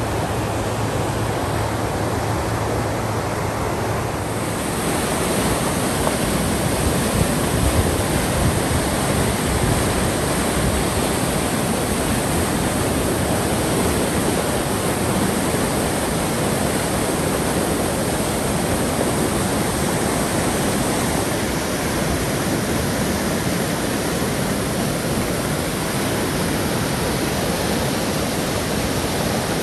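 River rapids in high spring water rushing over rocks: a steady, loud, even roar of whitewater.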